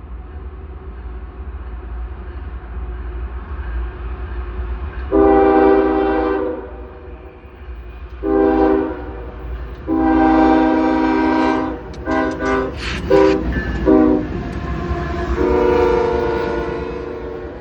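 A locomotive air horn sounds a chord in a series of blasts: a long blast, a short one, another long one, a quick run of short toots, then a final long blast. It plays over the low, steady rumble of the approaching train, which is the horn signal a train sounds as it nears a road crossing.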